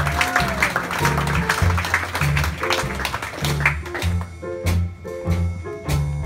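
Traditional New Orleans jazz band playing a slow number: clarinet, cornet and trombone over banjo, piano, string bass and drums. About four seconds in the wind instruments drop back, leaving the rhythm section's struck chords and steady beat.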